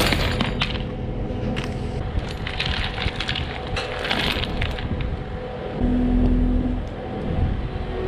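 Steel chain clinking and rattling as it is handled over heavy rubber belting, over the steady hum of a Kubota skid steer's engine running. A louder low hum lasts about a second, about six seconds in.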